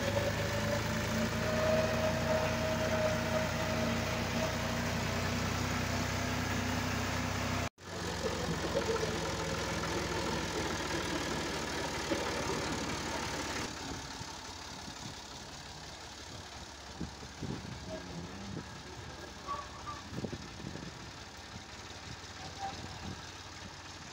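Massey Ferguson 360 Turbo tractor's three-cylinder diesel engine running steadily as the tractor drives, heard close to the engine. The sound cuts out for an instant about eight seconds in. From about fourteen seconds in it is quieter, with scattered light knocks.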